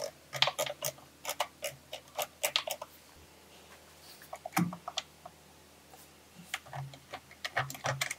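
Irregular runs of light clicks and ticks from a table saw blade-lifting mechanism as its horizontal crank rod is turned by hand, the white plastic bevel gears meshing and the steel rods and brackets knocking lightly in their mounts.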